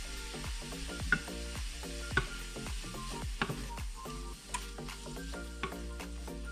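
Ground meat sizzling in a stainless steel frying pan as a wooden spoon stirs it, knocking against the pan about once a second. Background music plays underneath.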